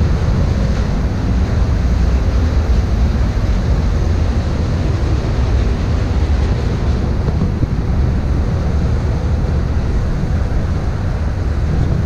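Wind buffeting the microphone on the open deck of a ship under way, over a steady low rumble and the wash of its wake.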